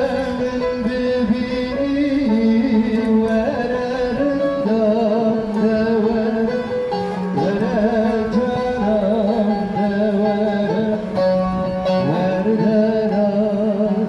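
Bağlama, a Turkish long-necked lute, being played through a small portable amplifier, with a man singing along into a microphone in a wavering, ornamented melody.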